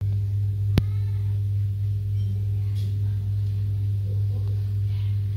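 Steady low electrical mains hum, with one sharp click a little under a second in.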